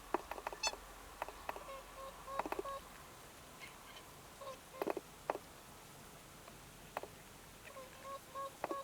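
Juvenile snow geese: a few short, soft calls heard among runs of sharp clicks and taps.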